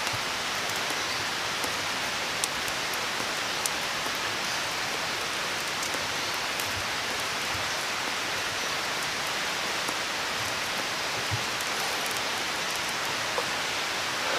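Steady even hiss of forest ambience, with a few faint soft clicks scattered through it.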